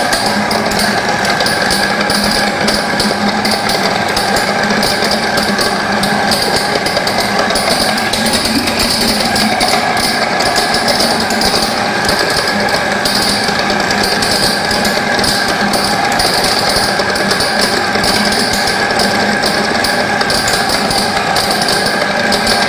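Maksindo AGR-GRP 150 dry-and-wet grinding machine running steadily under load, wet-grinding soaked soybeans with water into a fine slurry.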